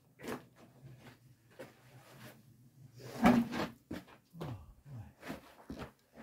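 Irregular short knocks and scrapes, the loudest about three seconds in.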